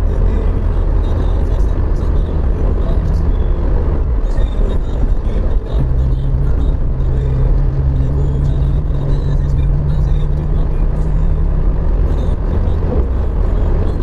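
Car cabin road noise while driving on a wet road: a steady low rumble of engine and tyres, with a steady hum coming in for several seconds in the middle.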